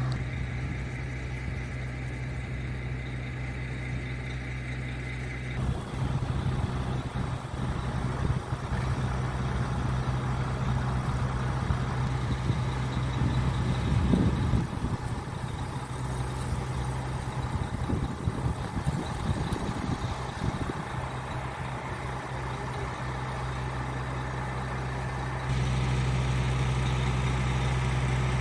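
Septic pump truck running steadily with a low, even drone. For most of the middle a low, uneven rumbling noise on the microphone covers it, and the plain drone returns near the end.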